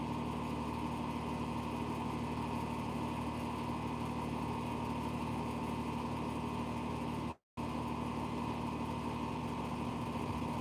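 Steady machine hum with a few fixed tones, like a running motor or compressor. It cuts out completely for a fraction of a second about seven seconds in.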